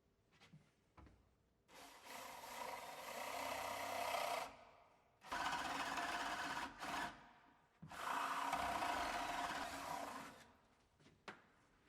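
Drill with a flat wood bit boring into the edge of a timber door, running in three spells of a few seconds each with short pauses between, and a few light clicks before and after.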